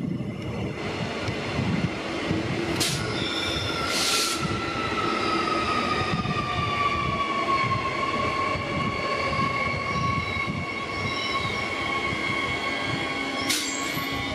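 Queensland Rail electric suburban train running past along the platform, with a whine that falls slowly in pitch over several seconds. Three short hissing bursts come about three, four and thirteen seconds in.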